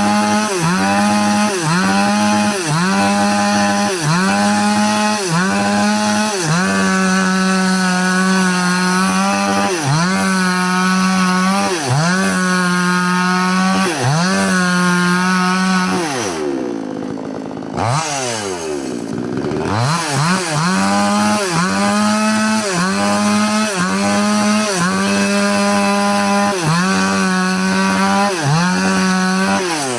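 Chainsaw at high revs cutting wood, its engine pitch sagging and recovering about once a second, then in longer pulls, as the chain bites into the log. About sixteen seconds in the throttle is let off and the engine winds down, revs up once briefly and winds down again. It then picks back up and cuts again with the same repeated dips.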